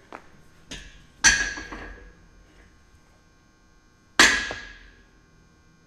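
Two metallic clanks of a loaded barbell striking the steel rack's J-hooks, about three seconds apart, each ringing on briefly as the bar is lifted out of and set back into the hooks, with a faint click before the first.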